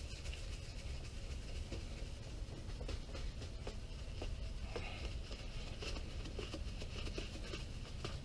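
Fine-grit sandpaper rubbing back and forth by hand over a wet plastic headlight lens sprayed with glass cleaner: a steady, soft scratchy rubbing with small irregular ticks. This is the second, fine sanding step, smoothing out the coarse-grit scratches on the oxidised lens.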